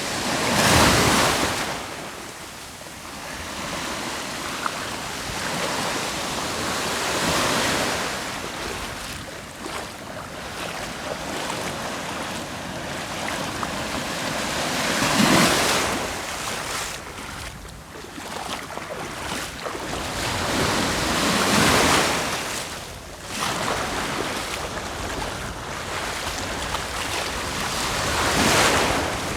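Sea waves breaking on the shore, each one swelling up loud and washing back, about every six to seven seconds.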